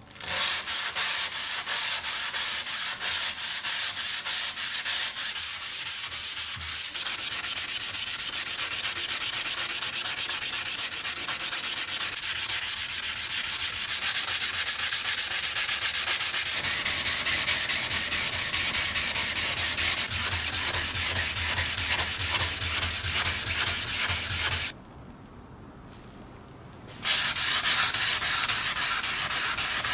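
Sandpaper on a block rubbed back and forth by hand over the rusty steel blade of an antique bread cutter, a rapid, steady scraping rhythm that takes the rust off. The strokes stop for about two seconds near the end, then start again.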